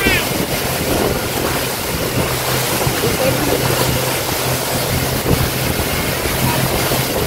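Motorboat under way at speed: a steady engine hum beneath the rush of wind on the microphone and splashing water.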